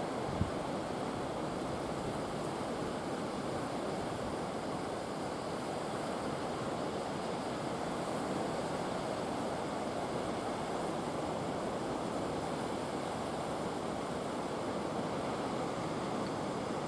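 Sea waves surging and washing against a breakwater in a steady, unbroken rush, the swell raised by a passing typhoon. A single brief knock sounds about half a second in.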